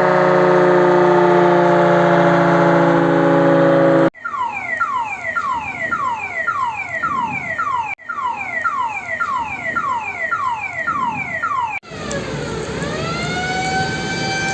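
Air-raid warning sirens sounding for a civil-defence drill, in edited segments. First comes a steady wail of several held tones that cuts off about four seconds in. Then a siren sweeps down in pitch about twice a second, and near the end a tone glides down and then holds steady.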